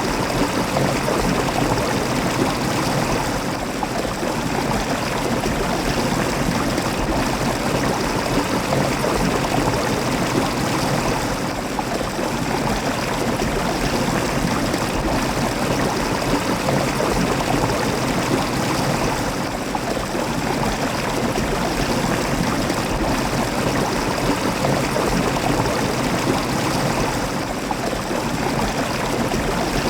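Flowing water rushing steadily, an even, unbroken noise with no change in level.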